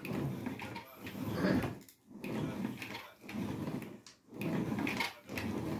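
Ab wheel rolling out and back over a tile floor, a rolling rumble about once a second, each ending in a short pause as the direction changes.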